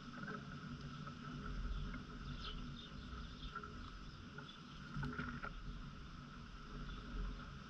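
Outdoor yard ambience: a steady low rumble with faint, scattered short bird chirps.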